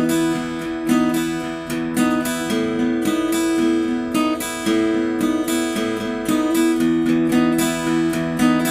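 Ibanez AEL40SE acoustic-electric guitar, with a solid spruce top and flamed sycamore back and sides, strumming chords steadily with a stronger accent about once a second.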